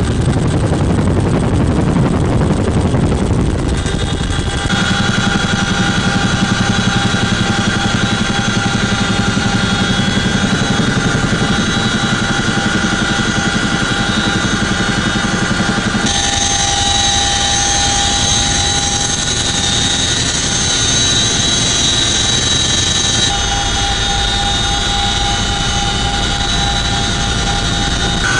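CH-47F Chinook tandem-rotor helicopter in flight, heard from inside the cabin: a loud, steady rotor beat and the running of its twin turboshaft engines, with high, steady whining tones from the drive system. The sound changes abruptly about 5, 16 and 23 seconds in as the shot cuts.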